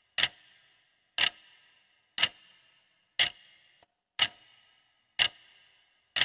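Countdown-timer clock-tick sound effect: one sharp tick each second, each with a short ringing tail.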